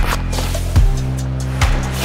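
Background music: held low notes with a steady beat, one stroke about every 0.8 seconds.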